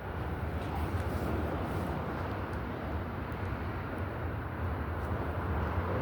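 Steady low rumble with a faint hiss of background noise.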